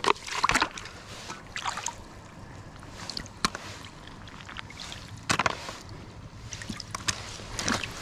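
Cockles and clams being rinsed by hand in seawater to wash off the sand: water sloshing, with about half a dozen sharp clicks and knocks scattered at irregular intervals.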